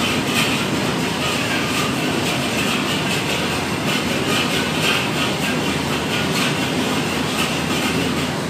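Gas wok burner fed from an LPG cylinder running at a high flame under a steel wok, a steady rushing roar of burning gas.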